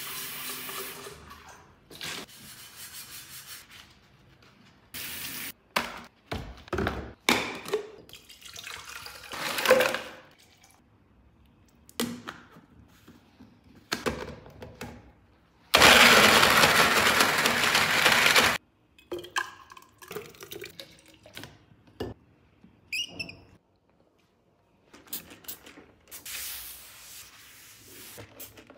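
Tap water running into and over a tumbler as it is rinsed, then clinks and knocks as a personal blender cup is filled with fruit and its lid fitted. About halfway through, the personal blender runs for about three seconds, the loudest sound. Near the end, a tissue rubs across a desk.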